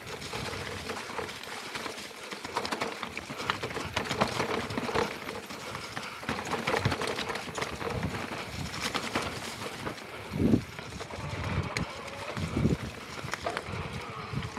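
Mountain bike descending over dry leaf litter and loose rocks: tyres crunching and a steady clatter of chain and frame rattle over the bumps. Heavier thumps come about ten and twelve and a half seconds in as the bike hits bigger rocks.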